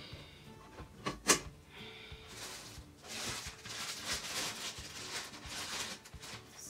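A light click and then a sharp clack about a second in as the stand mixer's tilt-head and bowl are handled. From about two seconds in, a plastic bag crinkles for several seconds.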